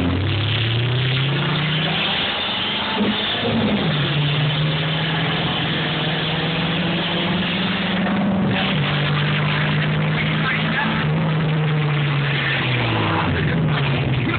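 Car engine accelerating hard through the gears, heard from inside a moving car: its pitch climbs, drops at a gear change a little over three seconds in, holds and climbs again to another shift about eight seconds in, then falls away as the car slows near the end. Heavy wind and road noise runs underneath.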